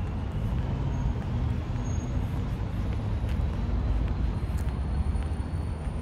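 Steady low outdoor rumble, with a few faint, short, high-pitched tones and small ticks now and then.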